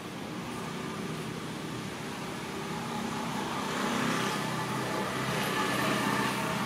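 A motor vehicle engine running steadily, with a low hum that grows louder around the middle, as if the vehicle is drawing nearer.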